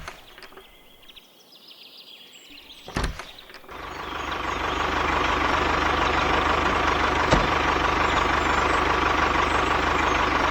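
Two clicks, then about three and a half seconds in a small motor starts up, builds over about a second and runs steadily with a faint whine.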